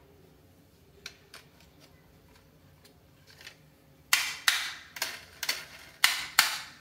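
Hard plastic clicks and clacks of a toy truck with a plastic cage trailer being handled: a couple of faint clicks, then, from a little past the middle, six sharp clacks coming roughly in pairs.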